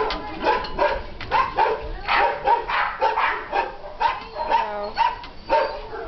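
A litter of puppies barking and yipping together, a quick overlapping run of short, high calls at about three a second.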